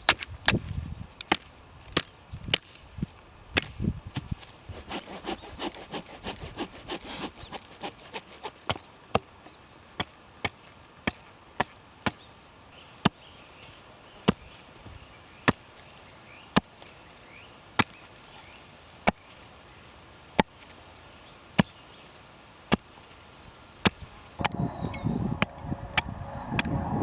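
Wood being chopped: sharp wooden knocks, irregular at first and then steady at about one a second, with a stretch of scraping early on. A louder, fuller sound comes in near the end.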